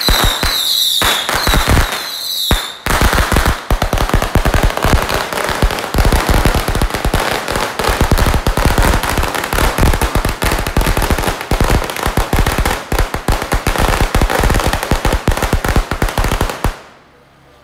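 Strings of firecrackers going off. For the first few seconds there are a few separate loud bangs under a high, wavering whistle, then a long unbroken rapid crackle of bangs that stops abruptly shortly before the end.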